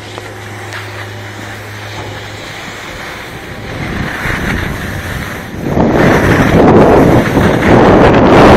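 Wind buffeting a phone microphone and snowblades hissing over snow as the skier gathers speed downhill. The rushing noise swells sharply about six seconds in.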